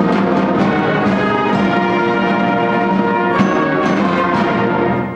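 Middle-school symphonic band playing the closing bars of a piece, flutes over brass with percussion accents. The final chord is cut off about five seconds in, and the concert hall's reverberation rings on briefly after it.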